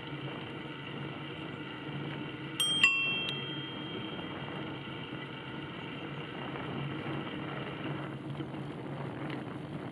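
Bicycle bell rung twice in quick succession, its tone ringing out and fading over about a second, as a warning to a pedestrian ahead on the path. A steady low hum and hiss from the moving ride continues underneath.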